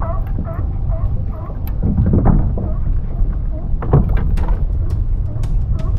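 Fishing reel being cranked against a hooked fish: a faint squeak repeating about three times a second over a low rumble of wind on the microphone, with a few sharp clicks and knocks about four seconds in.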